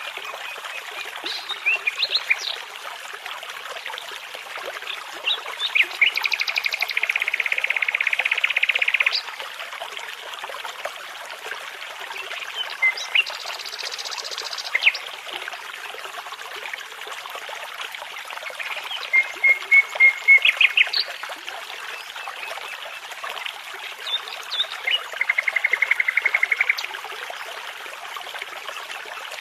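Songbirds singing over the steady rush of a babbling brook: scattered sharp chirps and several fast trills, one long trill a few seconds in and another near the end.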